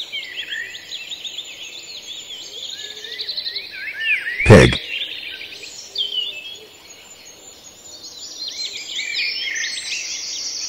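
Many birds chirping and whistling together, a dense background chorus of short high calls that thins out briefly past the middle.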